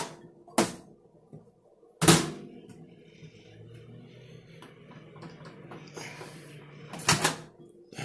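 Microwave oven door shut with a thunk about two seconds in, after which the oven runs with a steady low hum. The oven is starting on its own with its display at 0:00 and will not stop. Near the end the door is clacked open again.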